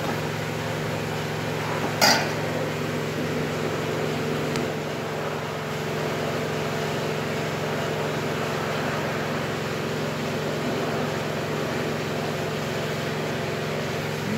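Steady mechanical hum, with a single sharp knock about two seconds in.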